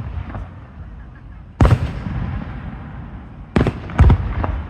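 Aerial firework shells bursting: one bang about one and a half seconds in, then two more close together near the end, each trailing off in a low echo.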